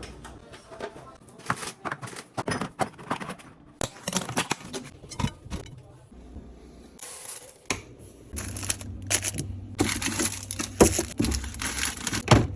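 Groceries and containers being handled: plastic packaging crinkling and tearing, with repeated clicks and light knocks of items set down.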